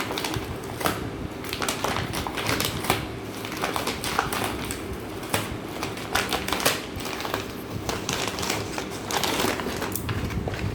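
Paper and cardboard packaging of a keyboard box being handled and pulled at: irregular crinkling, rustling and sharp clicks.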